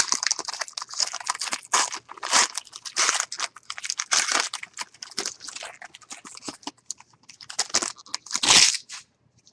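Plastic-and-foil trading card pack being torn open and crinkled by hand: a continuous run of irregular crackles and rustles, loudest near the end.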